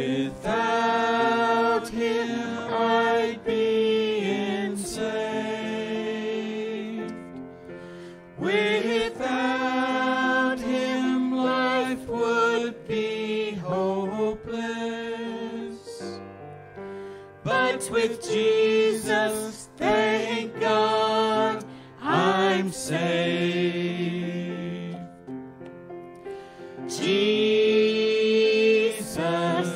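A small group of singers performing a slow gospel hymn, phrases of long held notes with short breaks between them.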